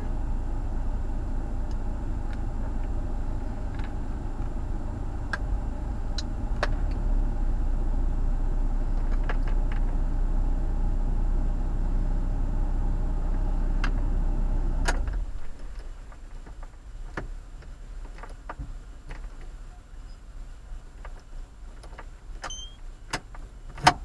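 Car engine idling, heard from inside the cabin as a steady low hum, cuts off abruptly about fifteen seconds in. Scattered light clicks follow, with one sharp click near the end.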